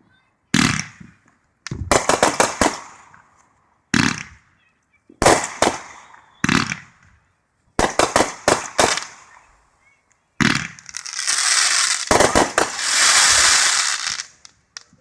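Consumer fireworks going off: a series of sharp bangs with short decaying tails, several coming in quick clusters, then a continuous loud crackling hiss lasting about four seconds near the end.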